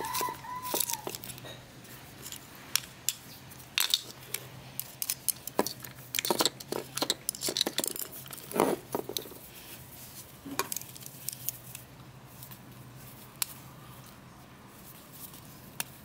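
Clicks, scrapes and knocks of hand tools and metal fan parts being worked and handled: dirt scraped out of a table fan's plastic gearbox housing and the motor set down. There is a brief squeak at the very start, and the clatter thins out after about eleven seconds.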